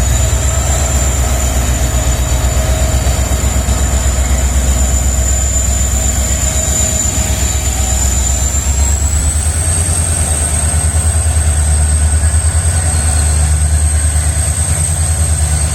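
WDP4B diesel-electric locomotive's 16-cylinder EMD 710 two-stroke diesel engine running with a steady, loud low hum. A high whine sits above it and steps up slightly in pitch about ten seconds in.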